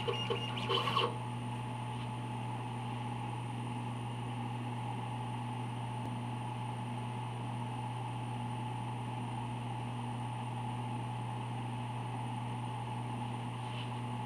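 Hobby CO2 laser engraver running: a busier machine sound in about the first second as the laser head finishes moving, then a steady low hum with a few constant tones.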